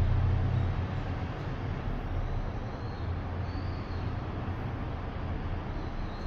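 Hyundai STVF-4 traction elevator with variable-frequency drive, running in the shaft. A strong low hum eases off about a second in and gives way to a steady rumble.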